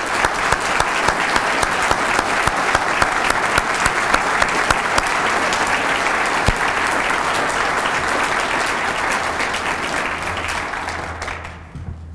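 Audience applauding: many people clapping steadily, fading out near the end.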